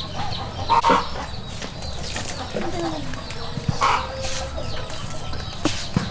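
Chickens clucking a few times, with light knocks and scrapes of a wooden paddle scooping cooked rice from a metal pot into a steel bowl.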